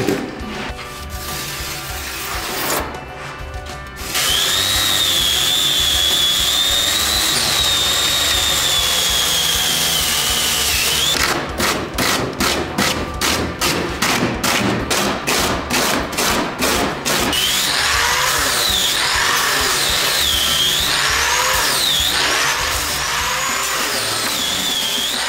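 Styrofoam being shaped with tools over background music. First a power tool's whine wavers in pitch. Then a hand rasp scrapes the foam in quick strokes, about three a second, and near the end the whine returns, rising and falling repeatedly.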